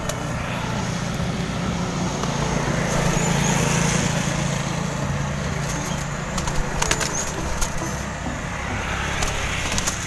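Steady low engine hum of a vehicle or motor running nearby, with a short flurry of pigeon wingbeats about six to seven seconds in.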